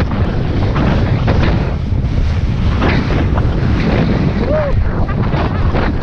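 Wind buffeting a helmet-mounted GoPro's microphone during a downhill ski run, with the skis hissing and scraping through breakable crust snow in a string of short rasps.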